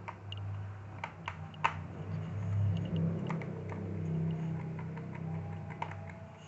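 Scattered light clicks and taps of small plastic and metal laptop parts being handled during disassembly, over a low steady hum.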